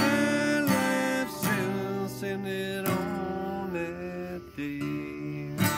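A man singing long held notes over a strummed acoustic guitar, with a few hard strums that ring out between them.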